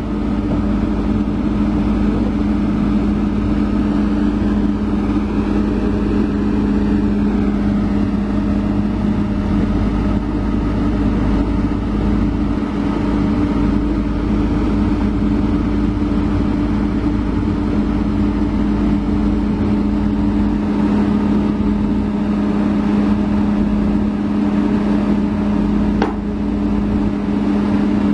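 Komatsu crawler excavator's diesel engine running at steady revs, a constant even drone. One short knock about two seconds before the end.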